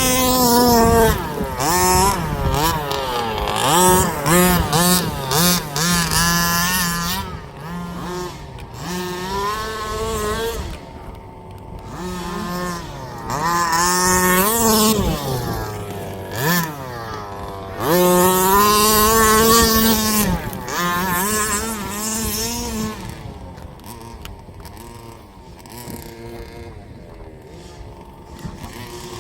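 Small two-stroke petrol engines of 1/5-scale RC buggies revving up and down over and over as they are driven, their pitch rising and falling and the sound growing louder and fading as they come near and move off.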